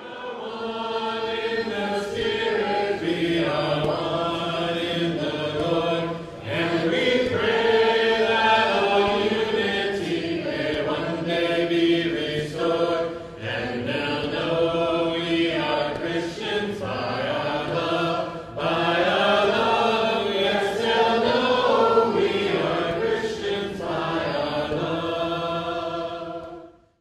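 A church congregation singing a slow hymn together in unison, unaccompanied, as is usual in Churches of Christ. The singing breaks off briefly a few times between phrases and ends just before speech begins.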